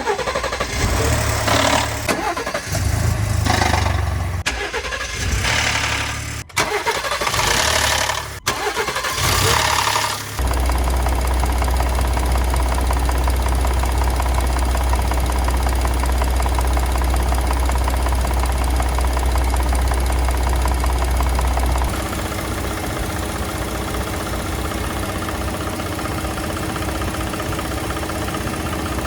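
The 3.5-litre EcoBoost V6 of a 2020 Ford Expedition starting and running, uneven and rattly for the first ten seconds or so, then settling into a steady run that changes character about two-thirds of the way in. The start rattle is the sign of failing variable camshaft timing phasers, which the dealer replaced under a service bulletin.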